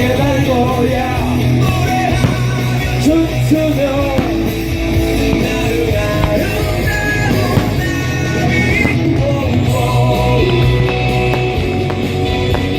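Rock song with a singer over electric guitar, bass and drums.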